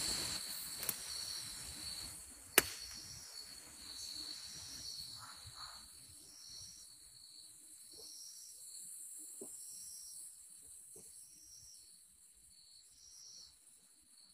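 Night insects: a steady high trill with a chirp repeating about every two-thirds of a second, faint throughout. Soft footsteps in leaf litter fade away, with one sharp click about two and a half seconds in.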